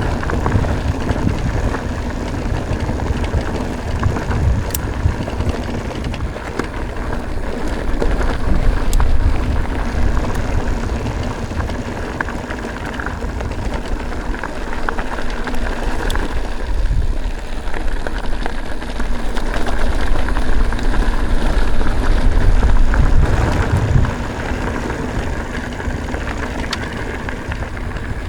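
Mountain bike riding along a dirt forest trail: tyres rolling over gravel, with wind buffeting the microphone as a heavy rumble and a few sharp clicks and rattles from the bike.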